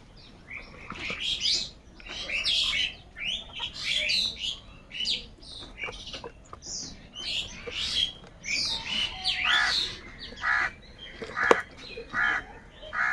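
A flock of crows calling, with many harsh caws overlapping in irregular bursts; the loudest comes near the end.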